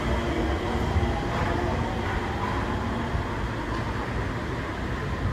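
Sengkang LRT train, a rubber-tyred Mitsubishi Crystal Mover, running, heard from inside the car. A steady rumble carries a low motor hum that fades out about halfway through, with a faint gliding whine above it.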